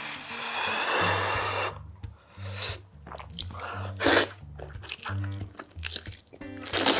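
Close-miked eating of boiled whole chicken: wet slurping and sucking as meat is pulled off the bone with the mouth, with chewing between. The loudest slurps come about four seconds in and near the end, over soft background music.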